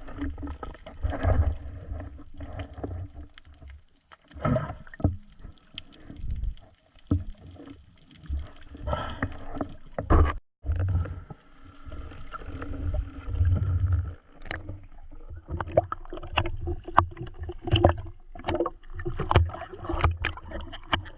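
Water sloshing and gurgling around the camera in uneven low surges, with many short sharp clicks scattered through it, and a brief break about halfway.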